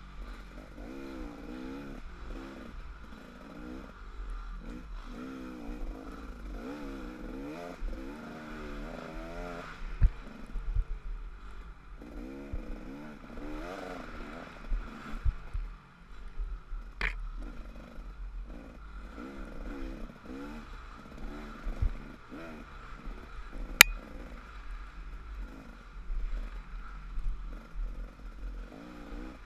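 Dirt bike engine heard from on the bike, revving up and falling back again and again as the rider works the throttle along the trail. A few sharp knocks cut in along the way.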